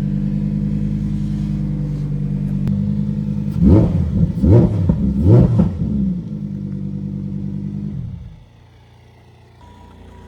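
Lamborghini Huracan Evo engine idling steadily, then revved in three quick throttle blips that each rise and fall. It settles back to idle and is switched off about eight seconds in.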